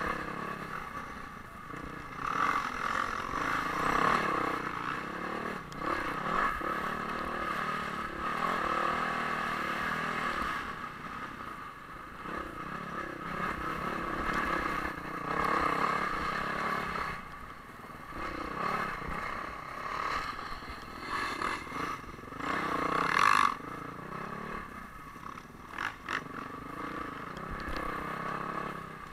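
Off-road motorcycle engine revving up and down with the throttle while riding over rough desert ground, picked up by a helmet camera, with scraping and rattling over the bumps.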